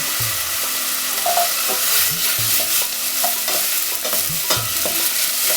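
Chopped onions and crushed garlic sizzling in hot oil in a pot, a steady hiss, with repeated strokes of a spoon stirring them.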